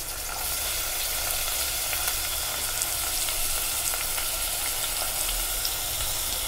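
Chopped red onion sizzling steadily in hot oil in a pot, just added over fennel seeds, bay leaf and cardamom.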